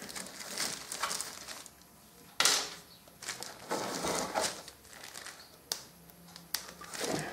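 Hands working at the oil-filter plate opening under a Triumph 650 engine, over a plastic oil drain tray: a sharp knock about two and a half seconds in, then scraping and a few light clicks.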